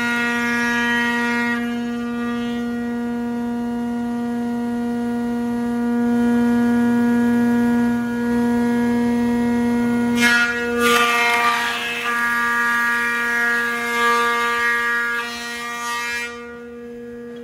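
Delta 24-inch planer running with a steady whine. Cutting noise from the cutterhead taking wood off a board fades out in the first couple of seconds, comes back about ten seconds in for roughly six seconds, then stops as the board clears the machine.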